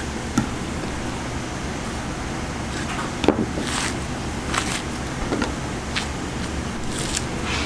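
A steady low machine hum with a string of short clicks and scrapes over it, the loudest about three seconds in.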